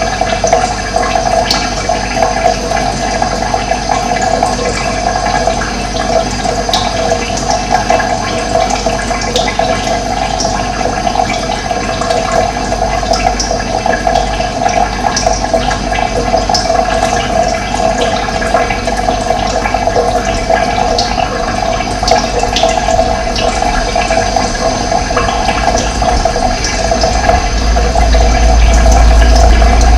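Running water flowing steadily, with a low rumble that swells louder near the end.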